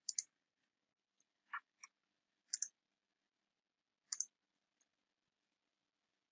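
Faint, sparse computer mouse and keyboard clicks, several as quick press-and-release pairs, about four clusters spread across a few seconds.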